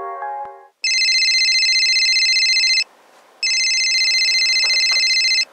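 AT&T cordless home phone ringing: two electronic trilling rings of about two seconds each, with a short gap between them.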